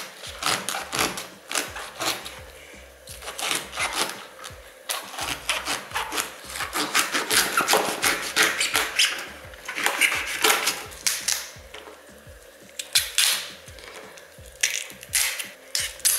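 Knife cutting through a raw artichoke on a plastic cutting board as its tough outer leaves are trimmed and snapped off, giving irregular runs of crisp clicks, snaps and crackles with short lulls between them.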